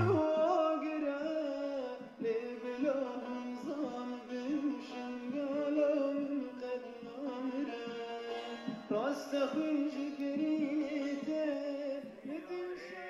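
A man singing a slow, bending melody, accompanying himself on a strummed long-necked lute.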